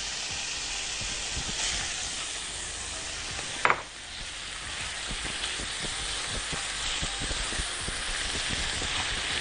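Basterma frying in ghee in a stainless steel frying pan, stirred with a spatula: a steady sizzle, with one brief sharp squeak a little over a third of the way in.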